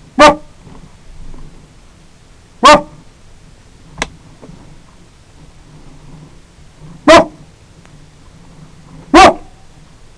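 A canine barking four times, single loud sharp barks spread a few seconds apart, with a faint click between the second and third.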